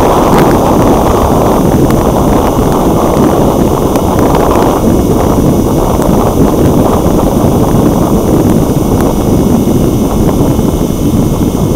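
Loud, steady wind rush over the microphone of a wing-mounted action camera on a flying RC plane.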